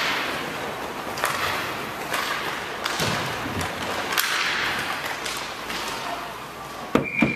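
Inline roller hockey in play: wheeled skates rolling on the rink floor, with scattered stick clacks and knocks, and a cluster of loud sharp knocks near the end.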